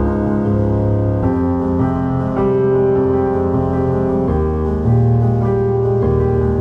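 Background music: slow, held keyboard chords that change every second or so.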